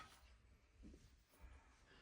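Near silence: faint room tone with a couple of very faint soft knocks.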